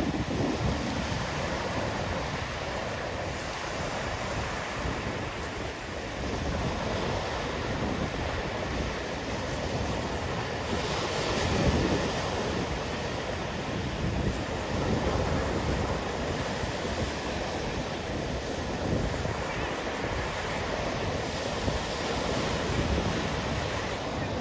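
Sea waves breaking and washing up the beach, with wind buffeting the microphone in low rumbling gusts; a larger wave washes in about halfway through.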